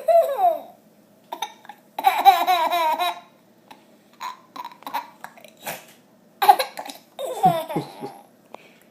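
A young child's hiccuping laugh: short high squeals and gasps, with one longer, fast, wavering run of laughter about two seconds in and two more bursts near the end.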